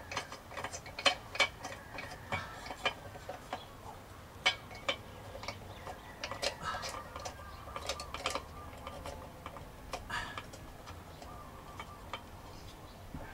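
Quick, irregular small metal clicks and scrapes of a threaded cap being twisted onto the top of a metal lantern-style light fixture. The clicks come thickest in the first few seconds and thin out later.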